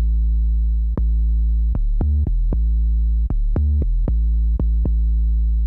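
Electronic outro music carried by a loud synthesizer bass line that jumps from note to note every half second or so.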